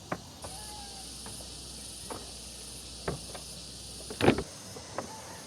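Steady high insect chirring, with a handful of short, irregular knocks; the loudest knock comes about four seconds in.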